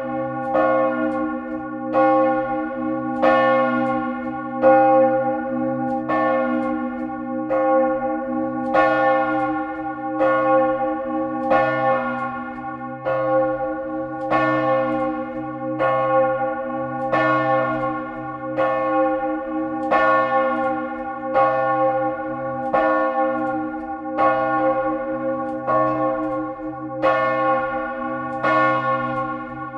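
Large church bell swinging in full peal at a high swing angle, its clapper striking at a regular beat of about one stroke a second. Each stroke rings out over the unbroken hum of the strokes before it.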